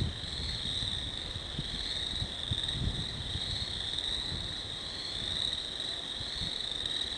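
Dense chorus of frogs calling from a flooded woodland pond, a continuous high-pitched drone that wavers slightly, over low rumbling on the microphone.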